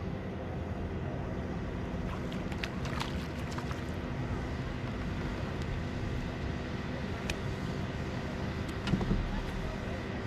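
Boat motor running at a steady hum, with wind rumbling on the microphone and a few light clicks and a low thump.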